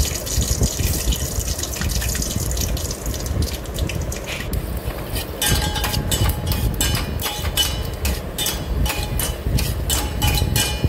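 Peanuts frying in hot oil in a steel pot, with a steady sizzle. From about halfway, a steel spoon stirs them, scraping and clicking against the pot's sides and bottom.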